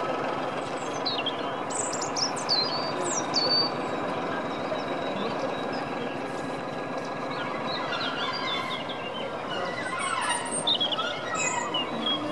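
BR Class 14 diesel-hydraulic shunter running slowly with a steady low engine note as it creeps along the track. Birds chirp over it, loudest in short bursts a couple of seconds in and again near the end.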